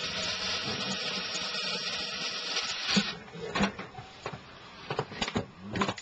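Power drill-driver running steadily for about three seconds, driving a screw, then stopping, followed by several sharp clicks and taps of handling.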